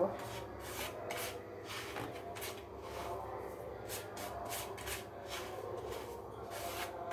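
Fingers rubbing and pressing powdered milk mixed with ghee against a ceramic plate, working it into a dough. It makes soft, scratchy brushing strokes, roughly two a second.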